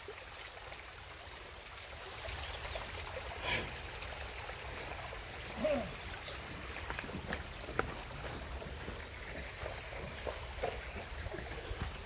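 Shallow creek trickling steadily, with scattered footsteps on sandy ground and a couple of brief louder sounds near the middle.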